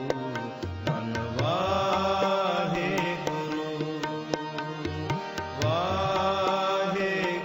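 Devotional Indian music: a melodic line that twice slides up into long held notes, over steady hand-drum strokes.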